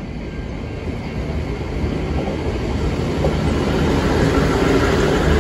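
A V/Line VLocity diesel railcar train rolling in past the platform, its engine and wheel rumble growing steadily louder over the first few seconds and then holding.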